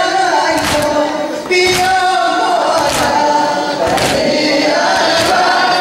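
A congregation chanting a Muharram lament (noha) in unison, with sina zani chest-beating: the whole crowd strikes their chests together about once a second, in time with the chant.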